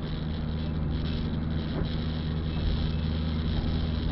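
Steady engine hum and tyre noise inside a moving car's cabin on a rain-wet road.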